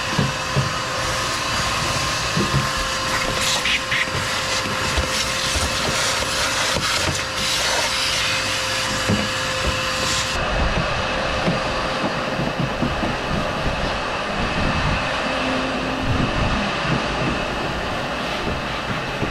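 Steady whir and rush of air from a powered cleaning tool, used to clear caked mud out of the frame. A hiss rides above it and cuts off suddenly about ten seconds in.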